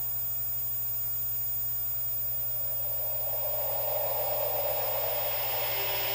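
Steady electrical mains hum and buzz with hiss from the VHS playback, in a gap between promos where no music plays. A wash of noise swells up from about three seconds in.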